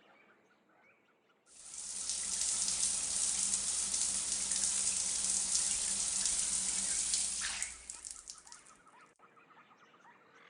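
Water running hard from a tap, turned on suddenly about a second and a half in and shut off about six seconds later.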